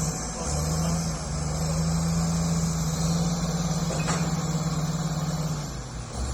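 Heavy vehicle's engine running steadily. Its low hum dips briefly about half a second in and again near the end. There is a single short click about four seconds in.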